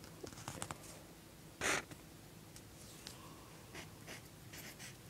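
Pencil on paper: a few faint short scratches and taps, with one louder brief scrape about a second and a half in.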